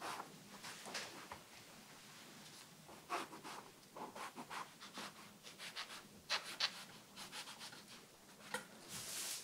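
Chef's knife slicing a whole eggplant lengthwise into thin strips on a wooden cutting board: runs of short, soft scratching strokes as the blade saws through the flesh, with a longer rasp near the end.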